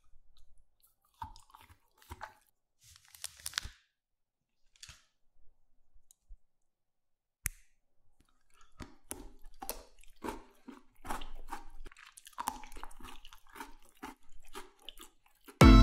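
Close-miked chewing and crunching of chocolate, in scattered crackles that grow denser in the second half, with one sharp snap about halfway through as a filled chocolate bar is broken in two.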